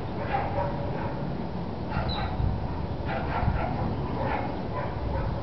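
A dog yipping and whining in a series of short, pitched calls, over a steady low rumble.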